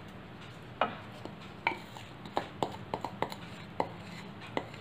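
Wooden spatula tapping and scraping against the rim and inside of a glass bowl as the spiced oil tempering is scraped out into the pan: about ten short, sharp knocks at uneven intervals.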